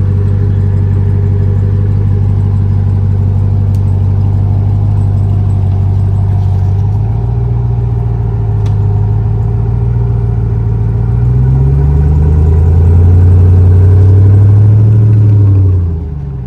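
Off-road truck engine running at low speed while crawling a trail, revving up about eleven seconds in, holding louder for a few seconds, then dropping back near the end.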